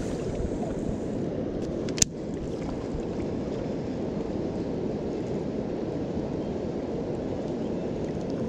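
Steady rushing of water pouring over a river spillway, with a single sharp click about two seconds in.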